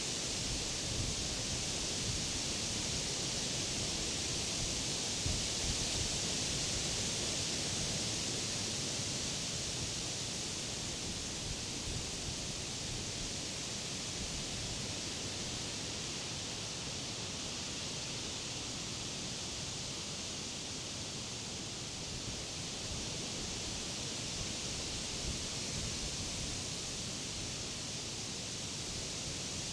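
Wind blowing through leafy summer trees, a steady rustling hiss of leaves that eases slightly midway and picks up again toward the end.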